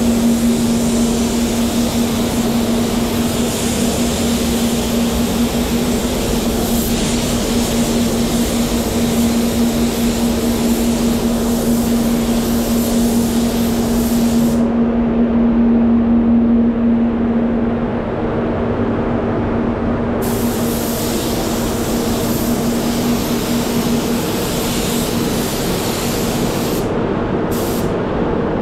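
Satajet spray gun hissing as compressed air atomises paint onto the car's panels. The hiss stops for several seconds about halfway through and cuts out twice more briefly near the end as the trigger is released. Under it runs a steady low hum, typical of a spray booth's extraction fan.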